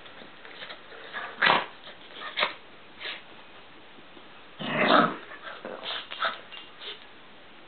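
Lhasa Apso giving short growls and whines in separate bursts while it wriggles on its back on a blanket. The longest and loudest comes about five seconds in, with a few smaller ones after it.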